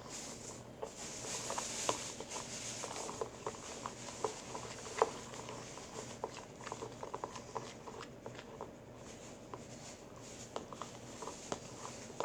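Glue and shaving cream being stirred by hand with a spoon: soft squishing with many small irregular clicks and taps of the spoon against the container.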